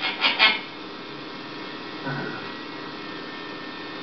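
Steady electrical hum with hiss. A rhythmic pulsing sound ends about half a second in, and a brief faint sound comes about two seconds in.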